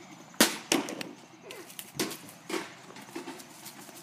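A few sharp knocks. Two come close together about half a second in, the first the loudest, and two more about two seconds in and two and a half seconds in.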